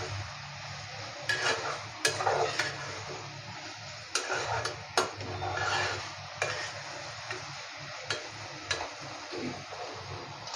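A metal spatula stirring and scraping brinjal and drumstick pieces in a stainless-steel kadhai over a high gas flame, with a steady frying sizzle under irregular scrapes and clinks against the pan.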